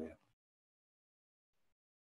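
Near silence on a video call line: a voice ends a word just at the start, then the audio drops to dead quiet.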